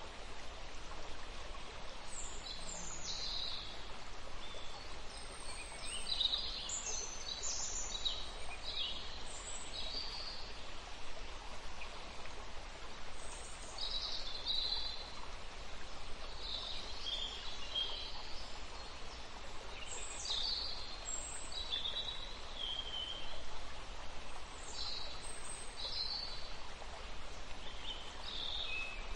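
Outdoor ambience of many small birds chirping and calling in short, scattered bursts over a steady hiss of background noise.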